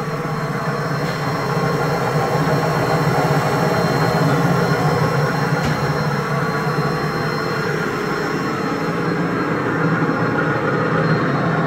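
Biro 3334 fixed-head meat band saw running with no blade fitted: its 3 hp three-phase electric motor and the saw wheels give a steady, even hum, running nice and quiet.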